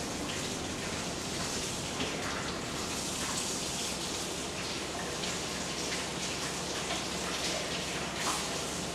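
Steady rain-like hiss with scattered faint pattering ticks.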